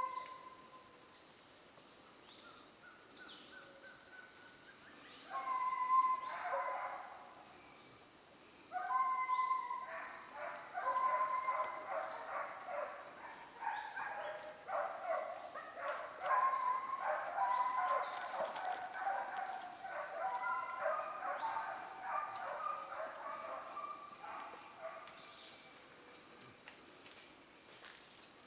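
Tropical forest ambience: a steady, high-pitched pulsing insect trill, with repeated animal calls coming in bursts from about five seconds in, busiest in the middle.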